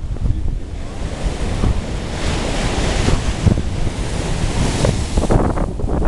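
Rough Caspian Sea surf breaking and washing over a rocky shore, with wind buffeting the microphone. A wave's hissing wash swells about two seconds in and dies away shortly before the end.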